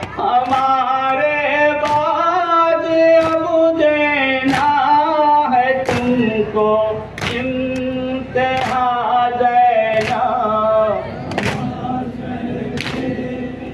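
Men and boys chanting a noha, a Shia mourning lament, in chorus. Sharp chest-beating strikes of matam land roughly once a second in time with it.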